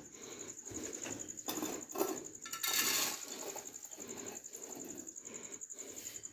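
Wire pigeon cages rattling and clinking as they are handled, with a brief louder rustling rush about halfway through.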